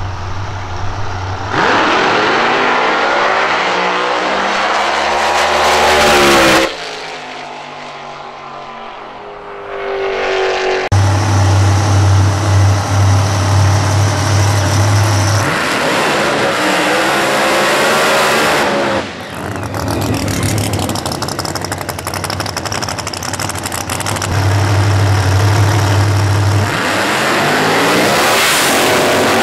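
Drag racing V8 engines at full throttle in several abruptly cut segments, revving hard with the pitch sweeping up and down, between stretches of a steady low engine note. Near the end the supercharged V8 Commodore ute launches, its pitch climbing.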